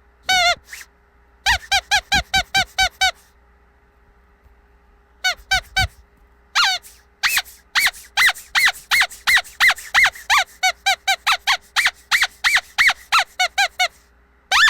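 Squeaky dog toy squeezed over and over in short, high squeaks. A single squeak comes first, then a quick run of about eight, a pause of about two seconds, and then a long, even run at about three to four squeaks a second.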